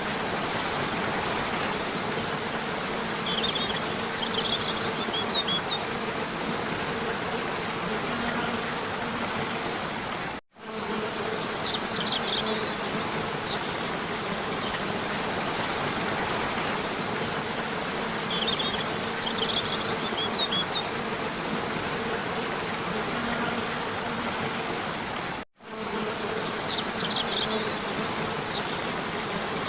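Steady buzzing and hum like a swarm of insects, over an even hiss, with small high chirps now and then; the whole pattern repeats about every fifteen seconds, with a brief dropout near the middle and again near the end.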